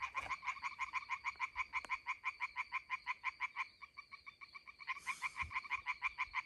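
Frogs calling in chorus, a fast, even rattle of about seven or eight croaks a second. It grows quieter in the middle and picks up again about five seconds in.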